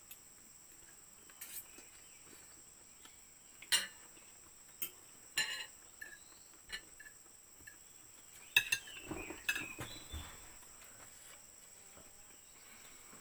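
Cutlery clinking and scraping against plates in short, scattered knocks, a dozen or so, with a brief cluster near the end. A steady high insect chorus runs underneath.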